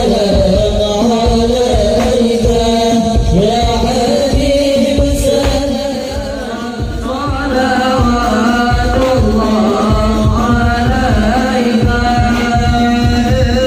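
Hadroh group singing sholawat in unison over a steady beat of frame drums. The sung melody moves in long, stepping phrases, and the music drops a little in loudness about six seconds in.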